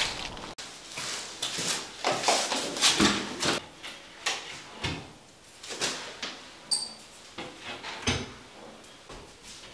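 Handling noises in a small tiled bathroom: a large cardboard box being moved and set down, with irregular scrapes, bumps and rustles, then quieter tapping and rustling of work at the tile joints.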